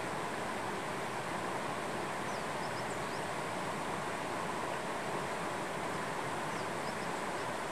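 Steady rush of a mountain stream flowing over stones, with a few faint high chirps heard twice.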